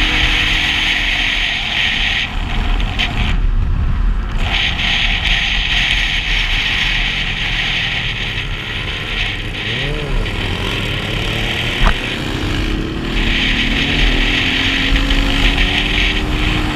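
Motorcycle riding at road speed heard from a helmet-mounted camera: a steady rush of wind and road noise over the engine's hum, with a brief lull about four seconds in. Nearby bikes' engines rise and fall in pitch, once about ten seconds in, and a sharp click is heard near twelve seconds.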